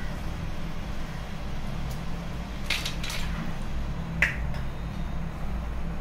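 Fingers working crumbly rava-besan ladoo mixture in a stainless steel bowl: two brief scrapes a little before the middle, then a sharp tap against the bowl about four seconds in. A steady low hum runs underneath.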